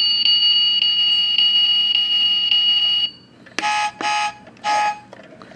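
Toy truck's electronic sound module playing a steady, high alarm-like tone for about three seconds. It then gives three short electronic horn beeps.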